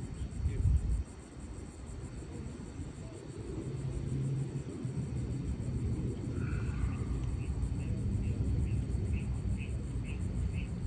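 Open-air background: a low rumble, louder in the first second, with a steady low hum that comes in about four seconds in. From about six seconds a short high chirp repeats about twice a second.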